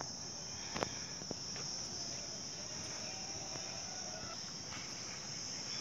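Steady, high-pitched drone of insects, with one sharp click a little under a second in.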